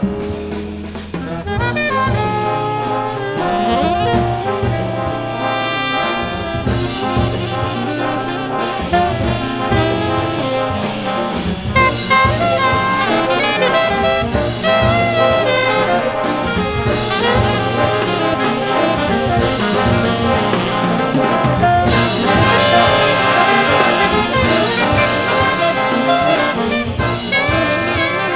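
Jazz orchestra music with brass and saxophones playing ensemble lines over bass and drums.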